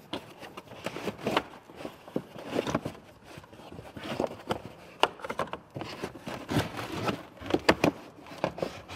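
Trunk carpet and plastic trim of a Tesla Model 3 being pulled back and handled: irregular rustling and scraping with scattered sharp knocks and clicks.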